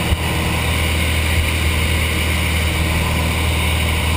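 Small single-engine plane's engine and propeller droning steadily, heard inside the cabin with the rush of air around it. A brief knock sounds just after the start.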